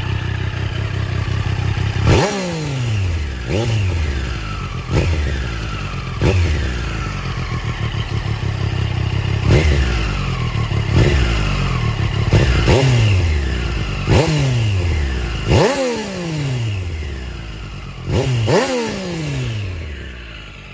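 Triumph Street Triple RS 765 cc three-cylinder engine, stock exhaust, revved on the stand. It idles briefly, then is blipped about ten times; each time the revs jump sharply and fall back toward idle.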